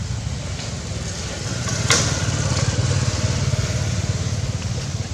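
Steady low drone of a small engine running, with one sharp click about two seconds in.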